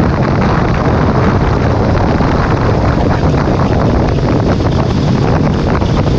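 Steady wind rush buffeting the microphone of a sport motorcycle at highway speed, with the bike's engine running underneath.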